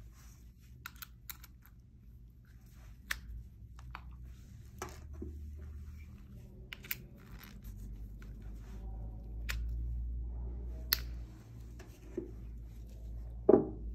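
Fishing-lure heads and plastic skirts handled and set down on a tabletop: scattered sharp clicks and taps as the skirts are swapped on and off the heads, with a louder knock near the end.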